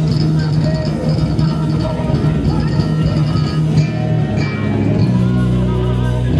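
Spector Euro 5 LX five-string electric bass played through an amplifier: a heavy riff of sustained low notes that drops lower and fills out about five seconds in.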